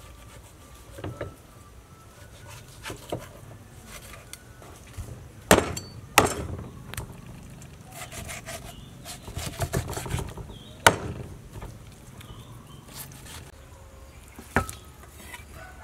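Meat cleaver cutting raw beef ribs on a thick wooden chopping block: scraping, sawing strokes through the meat, broken by a few sharp chops into the wood, the loudest coming around the middle.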